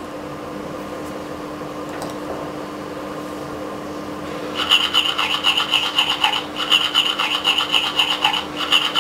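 Interactive doll's built-in speaker playing a tooth-brushing sound effect, set off by the toy toothbrush held to its mouth. A rapid, evenly repeating scrubbing starts about halfway through and runs with a couple of short breaks.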